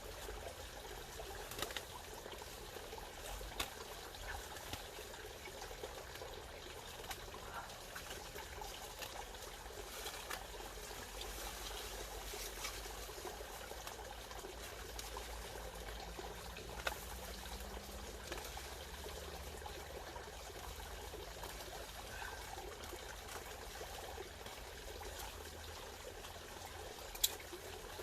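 Pond water trickling and bubbling steadily, with a few sharp clicks, the loudest near the end.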